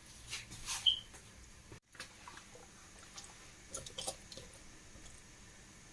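Hands working seasoning into raw chicken: soft wet handling sounds with light clicks and taps, and a short high squeak about a second in.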